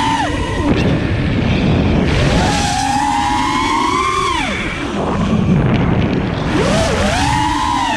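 Brushless motors of a 5-inch FPV racing quadcopter whining, the pitch climbing and then dropping sharply about three times as the throttle is punched and cut through dives, with wind rushing over the onboard camera's microphone.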